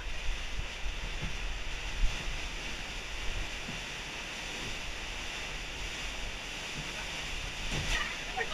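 Fast river water rushing and splashing through a low tunnel around a kayak, a steady hiss with a low rumble of wind and handling noise on the microphone. A sharp knock about two seconds in, with a few fainter ones.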